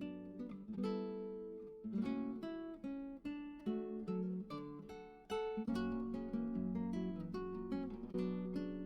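Background music: acoustic guitar strumming and picking chords at a steady pace.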